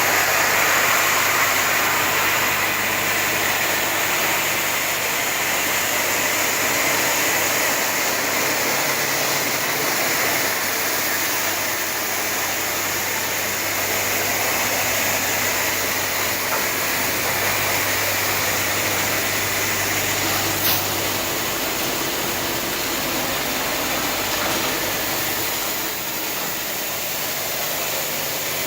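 Automatic heavy-vehicle wash machine running: a steady rushing noise over a low motor hum, the hum dropping away with a sharp click about two-thirds of the way through.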